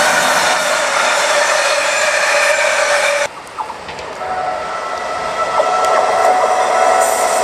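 Container freight wagons rolling past close by, wheels running on the rails with a steady squeal. About three seconds in it cuts off suddenly to a quieter, rising sound of an ICE 1 high-speed train approaching, with a thin steady whine, which grows louder near the end.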